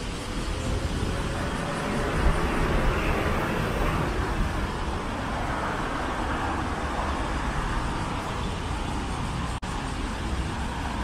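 City street traffic: a steady wash of road noise, with vehicles passing in two swells. A momentary dropout in the sound comes near the end.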